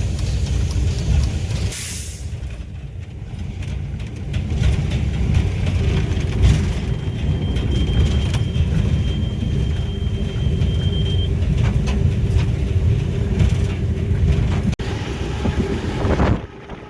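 GE U18C diesel locomotive running under load, heard from inside the cab: a steady low engine and rail rumble, with a faint high whine for a few seconds midway. The sound drops off suddenly near the end.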